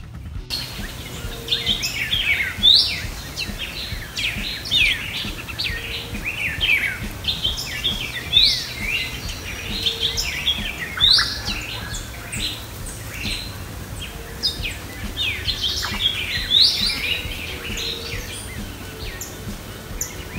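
Several birds chirping and calling: many short, sharp notes, mostly sweeping downward, overlapping one another, over a low steady hum.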